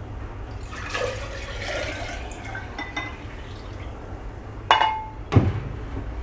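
Water poured from a glass bowl into a glass pitcher, splashing and gurgling for about two seconds. Near the end come two sharp ringing clinks of the glass bowl's rim against the pitcher.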